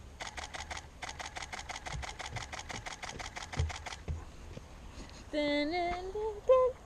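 Canon EOS 5D Mark IV shutter firing in a continuous burst: a rapid, even run of mechanical clicks lasting about four seconds. Near the end a drawn-out voice sound rises and wavers in pitch.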